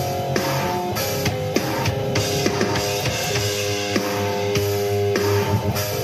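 Electric guitar playing a metal riff over drums, held chords ringing under repeated drum hits.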